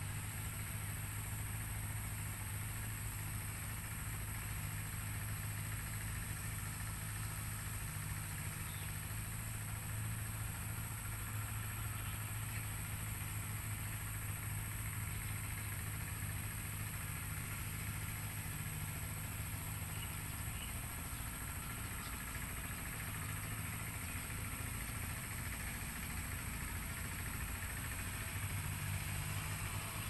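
An engine idling steadily, a low even hum with no change in pitch.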